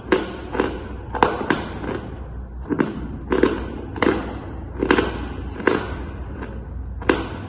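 Dry chalk crunching close to the microphone: about a dozen sharp, crisp crunches, one every half second to second, each trailing off briefly.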